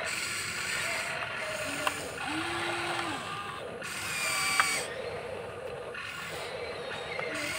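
Electric motors and gearboxes of a Huina radio-controlled toy excavator whirring in spurts as the boom, arm and bucket move, with a sharp click about halfway through.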